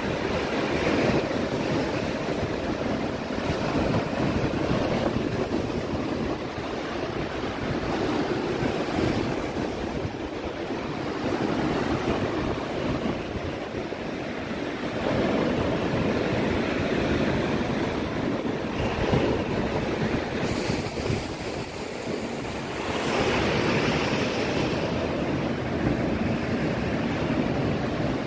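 Stormy sea surf breaking and washing up a pebble beach, a continuous rush that swells with each wave every few seconds.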